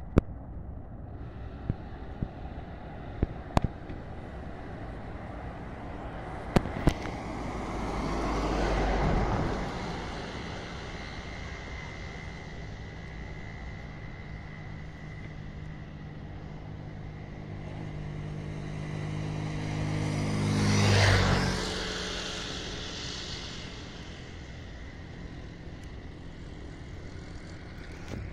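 Two motor vehicles pass close by, one after the other; each engine sound swells and then fades, the first about nine seconds in and the second about twenty-one seconds in. A steady rumble runs underneath, with a few sharp knocks in the first seven seconds.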